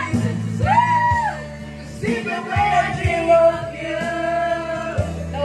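Karaoke backing track playing loudly while voices sing along with it. One voice holds a long note through the second half.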